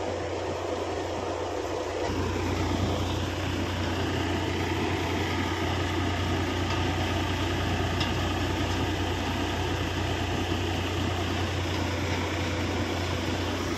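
Tractor-powered threshing machine running steadily while threshing fennel: a constant mechanical drone over a low engine hum, which gets a little stronger about two seconds in.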